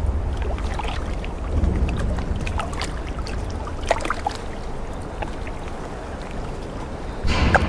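Water lapping around a boat over a low steady rumble, with scattered small ticks and splashes; a louder rush of noise comes in near the end.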